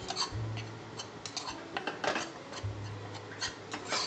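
Spoon scraping and tapping against a small pan while stirring dry-roasting coriander and chilli powder, with irregular ticks and scrapes.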